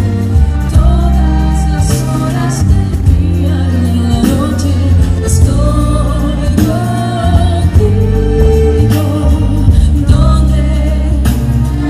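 Female singer performing live into a microphone over loud amplified music with heavy bass and repeated drum hits.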